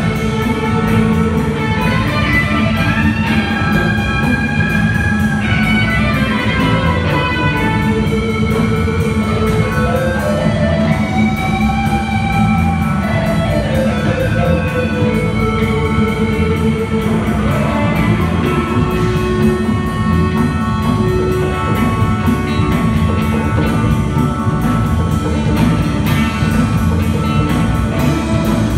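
Live electric guitar played loud through a Mesa/Boogie amplifier cabinet: a lead line of long, sustained notes that slide and bend up and down over a steady low backing, with drums keeping time.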